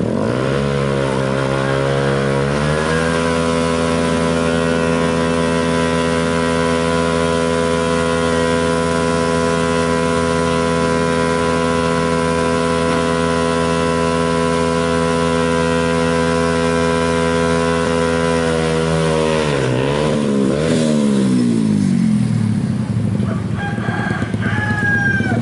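Yamaha Vixion's single-cylinder engine revved up over the first few seconds and held at high, steady revs for a long burnout with the rear tyre spinning, then its pitch drops and wavers as the throttle comes off. Faint high chirps sound near the end.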